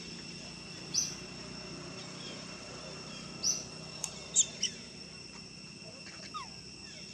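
Outdoor ambience of a steady high insect drone, with a bird's short high chirp about three times: about a second in, about three and a half seconds in, and once more soon after.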